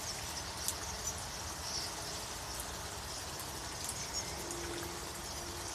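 A large flock of small birds calling, many short high chirps scattered over a steady background noise.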